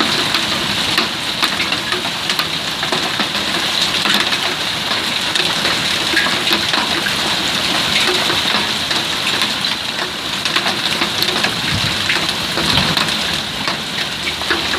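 Heavy storm downpour: a steady, loud, dense patter of rain striking surfaces, with many small sharp impacts.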